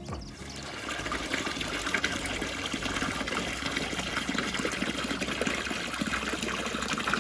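Water gushing and splashing steadily as the farm animals' water is freshened; it starts abruptly and builds over about the first second.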